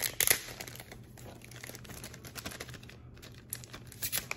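Paper crinkling and rustling as a folded instruction manual and its wrapping are handled, in irregular rustles with a louder crackle just after the start and a few more near the end.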